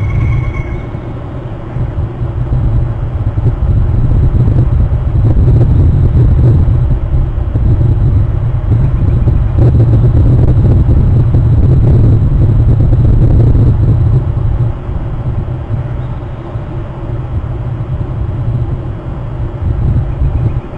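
Low rumble of wind buffeting an outdoor nest-cam microphone, swelling and easing in strength, with a brief high steady tone fading out in the first second.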